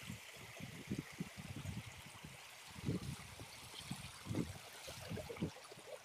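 Shallow stream running over rocks, a steady watery hiss, with irregular low thumps throughout.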